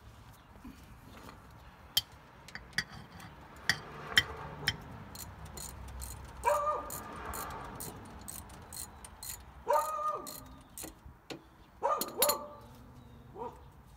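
Metal hand tools clicking and tapping irregularly at the differential cover's bolts. From about six seconds in, a dog barks briefly several times.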